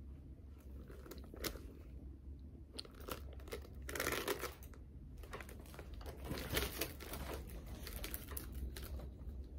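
Handling noise: clothing rustling and scattered light clicks as a leather handbag with a metal chain strap is moved and adjusted on the body, busiest about four seconds in and again a little past six seconds.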